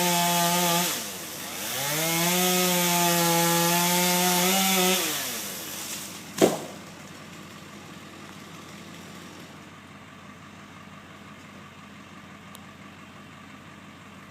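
Two-stroke chainsaw running hard while cutting into a dead tree. Its revs drop about a second in, come back up, and then die away around five to six seconds in. A single sharp knock comes about six and a half seconds in, after which only a quiet steady background remains.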